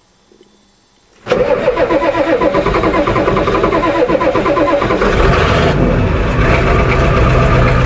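Ford diesel truck engine starting: a sudden burst of starter cranking about a second in, and the engine fires right up and keeps running. The freshly repaired starter, with cleaned connections and a new rear armature bearing, turns it over well.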